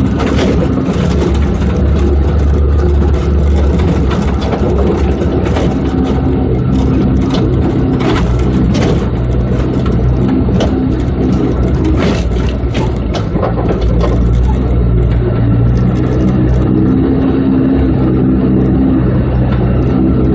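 Off-road vehicle's engine running under way, its pitch shifting up and down every few seconds with the throttle, with frequent knocks and rattles as the rig bounces over rough ground.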